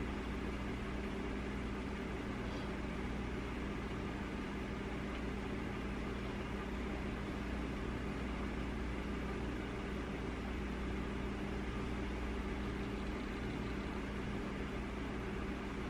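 Steady low mechanical hum with an even hiss: the room tone of a bedroom with a machine such as a fan or air handler running.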